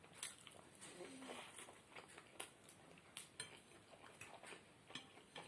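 Faint, scattered clicks and clinks of cutlery against a plate while eating.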